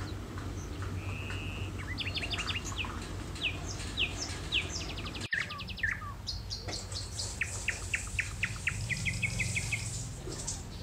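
Small songbirds chirping: short, sharp notes that sweep downward and quick rattling trills, over a steady low hum.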